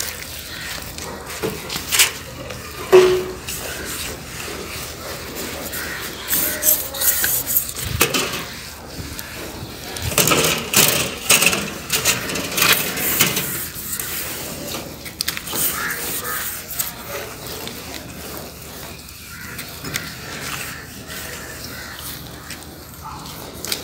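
A wet cloth scrubbing the glass face of a solar panel in irregular rubbing and scraping strokes, as the panel is washed with plain water.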